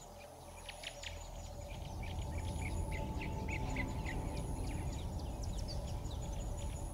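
Birds chirping in quick, short falling notes. A thin, high insect buzz comes and goes over a steady low rumble.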